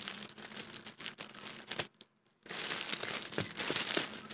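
Clear plastic wrapping being pulled and torn off a paper mailer by hand, crinkling and crackling. It breaks off briefly about halfway through, then resumes louder.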